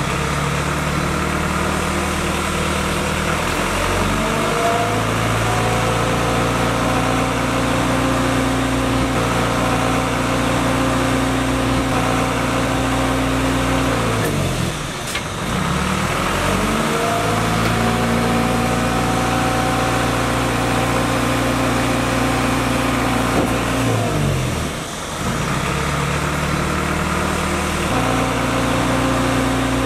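Isuzu Elf dump truck's engine running and raised in revs to drive the hydraulics that slide and tilt the self-loader bed. The revs rise about four seconds in and hold for roughly ten seconds, drop back briefly, rise and hold again, drop, then climb again near the end.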